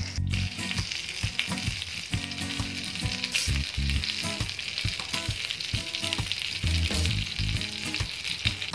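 Chicken drumsticks sizzling in their own fat on a ceramic grill pan: a steady hiss with dense crackling and popping.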